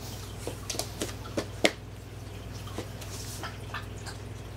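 A puppy's claws clicking and tapping on a hardwood floor as it scampers about, in scattered light clicks with one sharper tap about a second and a half in.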